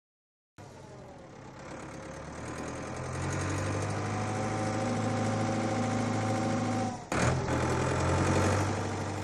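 Tractor engine running, starting about half a second in and getting louder over the next few seconds as it approaches. About seven seconds in it cuts out for a moment with a sharp click, then runs on.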